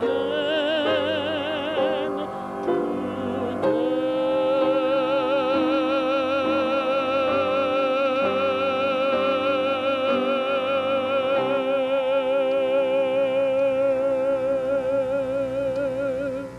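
Male opera singer singing: a few shorter notes, then, about four seconds in, one long high note held with wide vibrato until it ends near the close. Steady accompaniment sounds beneath the voice.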